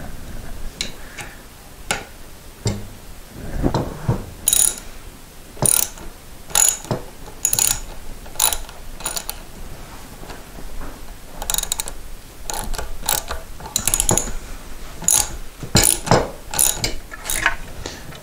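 Hand socket ratchet clicking in short bursts, about one a second, as it turns a double-nutted hanger bolt into a wooden post.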